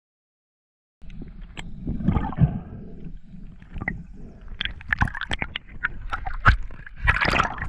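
Underwater sound from a diver's camera: water swirling and bubbling against the housing, with scattered sharp clicks and knocks. It starts about a second in, after silence.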